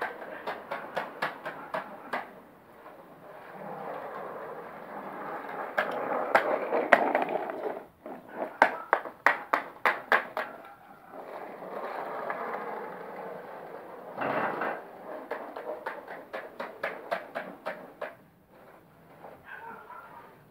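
Skateboard wheels rolling over a concrete floor, a rumbling hiss that builds and fades several times, with runs of quick, regular clicks as the board rolls.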